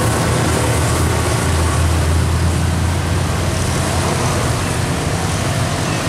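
Road traffic on a wet road: a tour coach's engine rumbling as it pulls away round a bend, mixed with passing motorcycles and tyre noise. The low rumble is strongest about two seconds in, then eases.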